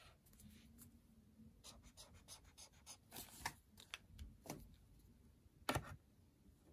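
Chisel tip of a Stabilo Boss highlighter scratching across notebook paper in a run of quick short strokes, then one sharp clack near the end.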